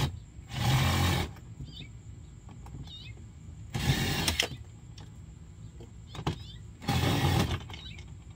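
Three short runs of a cordless drill or driver, each about half a second, backing screws out of a plastic ride-on toy car, with a couple of clicks between them. Birds chirp faintly in between.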